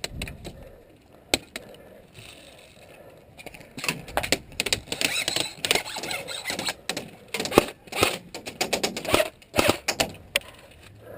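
Airsoft guns firing scattered short, rapid bursts of clicking shots, quieter than full fire, with clatter and rustling between the bursts.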